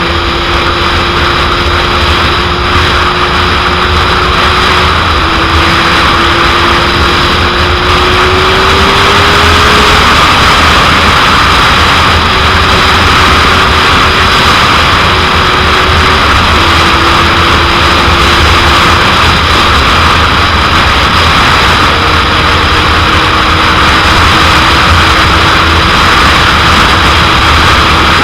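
Heavy wind noise rushing over the microphone at riding speed, over the engine note of a 2001 Suzuki GSX-R750's inline-four. The engine note holds mostly steady, shifting in pitch a few times and rising briefly about eight to ten seconds in.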